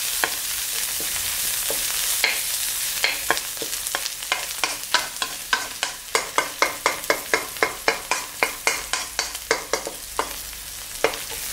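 Dried shrimp and chopped shiitake sizzling in oil in a wok while being stir-fried with a wooden spatula. Over the steady sizzle, the spatula taps and scrapes against the pan in quick, regular strokes, about three a second, from a few seconds in until near the end.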